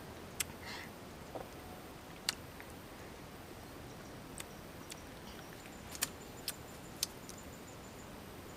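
A few sparse, sharp clicks and snaps as fingers pick at and peel a small wild fruit, over a steady faint background hiss.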